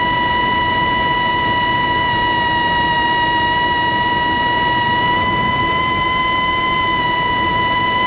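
Quadcopter drone in flight, its motors and propellers giving a steady high whine with overtones, the pitch wavering slightly, heard close from the drone's own onboard camera.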